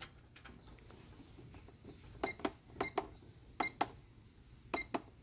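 Four short electronic beeps, each with a click, as keypad buttons are pressed, irregularly about a second apart from a couple of seconds in.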